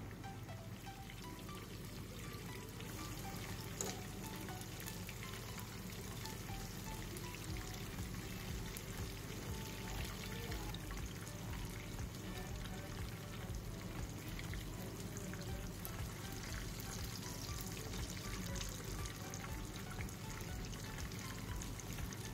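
Fish slices shallow-frying in hot oil: a steady sizzle with scattered small crackles and pops.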